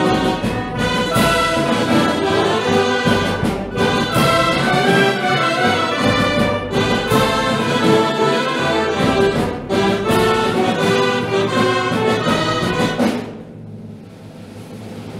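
Band of dulzainas with brass playing a grand, film-score-like piece; the music drops sharply to a quiet passage about two seconds before the end.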